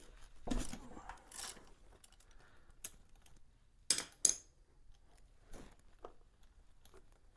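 Scattered metallic clicks and clinks of a ratchet and spark plug socket as the spark plug is worked out of the cylinder head of a 1978 Kawasaki KL250 single. Two sharp clinks about four seconds in are the loudest.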